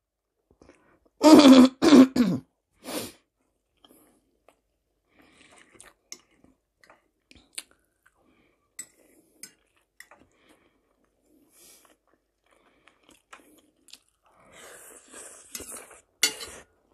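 A loud throat-clearing in two short bursts about a second in, then quiet chewing with faint scattered clicks. The chewing grows louder near the end.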